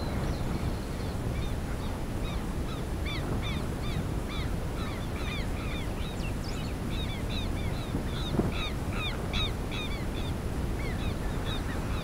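A flock of birds calling, many short arched calls overlapping and repeating, busiest in the middle of the stretch, with wind rumbling on the microphone underneath.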